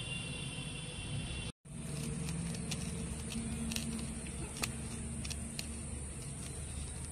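Hands mashing soft ripe banana into flour in a small steel bowl: a scatter of light, sharp clicks and soft squishing over a steady low background hum. The sound drops out for a moment about a second and a half in.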